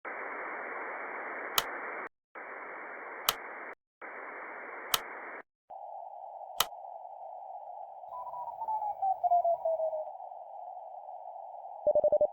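Radio receiver sounds: hiss of static in three stretches broken by brief dropouts, with sharp clicks about every second and a half, then a narrower, lower hiss across which a whistling tone slides down in pitch as a signal is tuned in. Near the end a Morse code tone sends five quick dots, the digit 5 at 25 words per minute.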